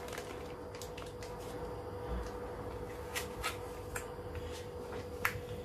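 Vacuum-sealed plastic bag crinkling and rubbing in the hands, with scattered light clicks, as it is pressed down into the water. A steady faint hum runs underneath.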